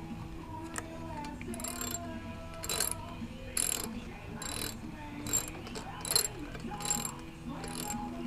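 Ratchet wrench clicking in short repeated strokes, about one every second, as it tightens a spark plug into the Suzuki dirt bike's engine.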